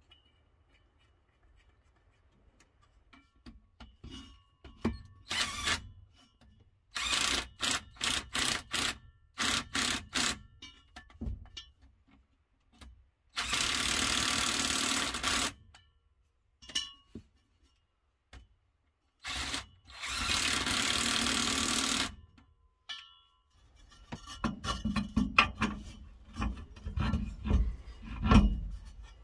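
Cordless power driver running bolts at a truck's rear-axle pinion yoke: several short bursts, then two steady runs of about two seconds each. Near the end, irregular knocks and clunks of a steel driveshaft being handled.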